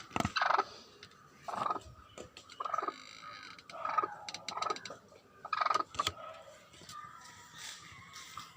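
Broody hen clucking in short repeated calls, about one a second, with a couple of sharp clicks among them.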